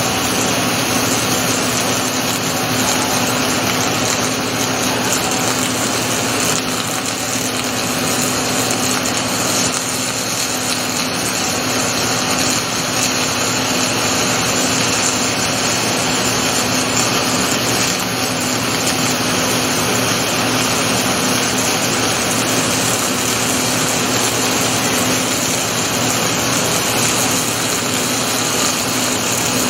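Rotoweld 3.0 automated pipe spool welding machine running: a loud, steady hiss with a constant hum underneath.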